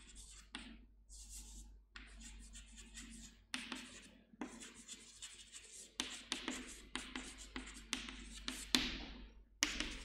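Chalk writing on a chalkboard: a run of quick scratchy strokes as a line of words is written, broken by short pauses between words.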